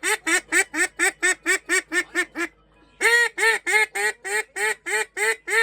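A rapid, even run of short, identical honking squeaks, about four or five a second, with a brief break about halfway through; an added cartoon-style sound effect.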